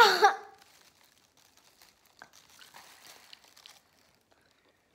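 A girl's short, loud vocal cry at the very start, then faint crinkling and small clicks from the girls chewing jelly beans.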